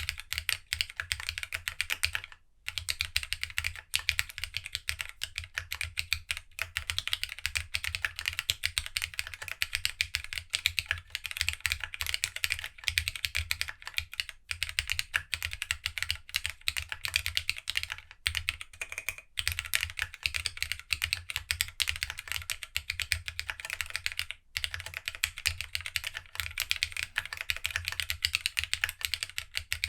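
Continuous fast typing on a GEONWORKS W1-AT mechanical keyboard, built plateless with no foam and fitted with glossy TOHSI GSA Retro Highlight keycaps: a dense run of keystrokes, broken by a brief pause a couple of seconds in and another about three-quarters of the way through.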